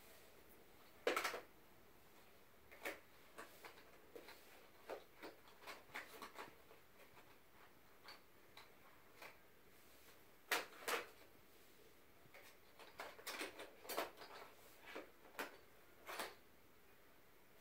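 Colored pencils rattling and clicking in a cardboard box as a baby handles it and pulls pencils out: irregular small clicks and taps, the loudest about a second in and around ten and eleven seconds in.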